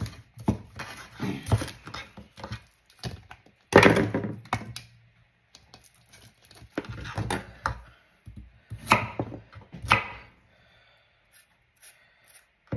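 Kitchen knife chopping green onion and carrot on a wooden cutting board: irregular knocks of the blade against the board, the loudest about four seconds in, with short pauses between bursts of cutting.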